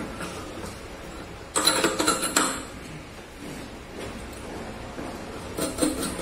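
Metal clinking and rattling as sections of a shower head's metal hanging rod are fitted together by hand. A cluster of clinks comes about a second and a half in, and a shorter one near the end.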